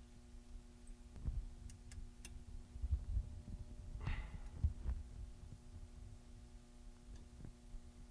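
Quiet work noises on the car: a few dull thumps, some faint light clicks and a brief scrape about four seconds in, over a steady low hum.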